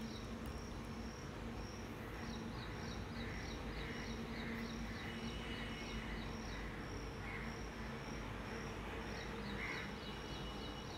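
A cricket chirping steadily, about three short high chirps a second, over a faint steady low hum.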